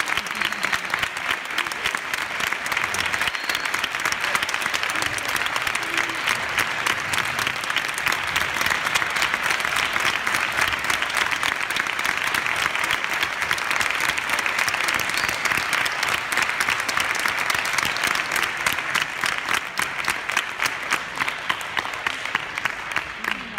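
Audience applauding, the clapping thinning to scattered claps near the end.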